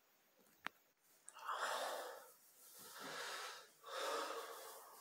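A man breathing heavily and raspily: three long, noisy breaths of about a second each, following a single sharp click about half a second in.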